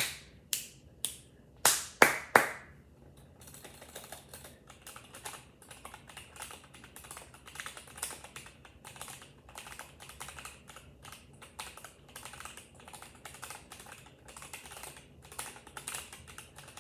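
Typing on a Razer Huntsman Mini keyboard with unlubed switches: a few loud, separate key strikes in the first couple of seconds, then fast, continuous typing.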